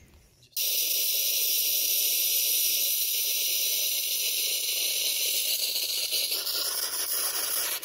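Lawn sprinkler head hissing steadily as it sprays a cloud of fine mist while the line is flushed out. It starts suddenly about half a second in and gets a little fuller near the end.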